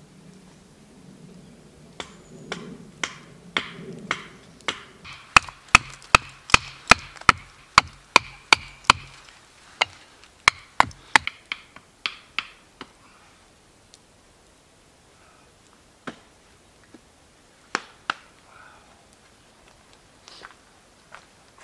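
Hatchet chopping wood: a run of sharp blows, about two to three a second, loudest in the middle, then a few scattered single blows near the end.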